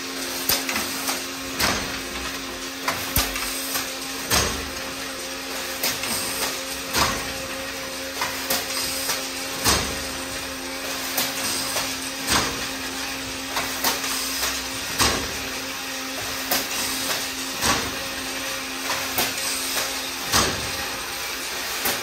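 Automatic crimped wire mesh weaving machine running: a steady motor hum under a heavy clank about every two and a half seconds, one per weaving stroke, with lighter metallic clicks in between.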